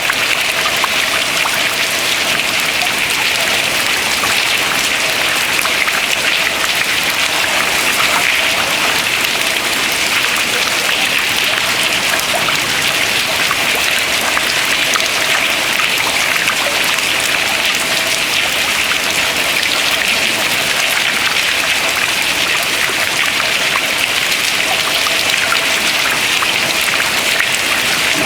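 Water dripping steadily from ice into the water below: a dense patter of many small drops over a steady watery hiss, with no single large impact.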